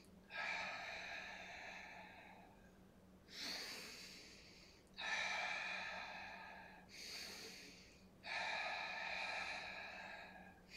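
A man's breathing close to the microphone, steady Pilates breaths while he holds a forearm plank: five audible breaths, some about two seconds long and some shorter, each starting suddenly and fading away.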